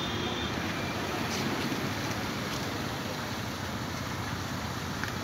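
Mobile crane's engine running steadily as it holds a boat suspended on its hook.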